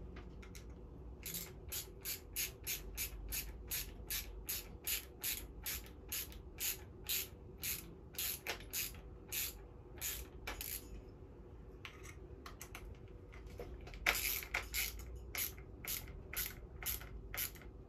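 Hand screwdriver driving a wood screw through a loom handle into the wooden beam, with a short scratchy stroke on each twist at about three a second. The strokes break off for a couple of seconds about two-thirds of the way through, then start again.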